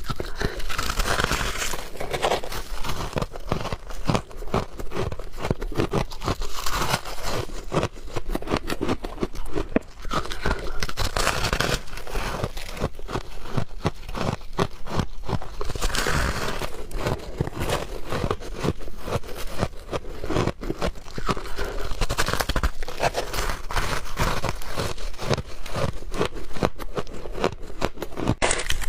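A person chewing soft ice: a dense, continuous run of crunching and crackling.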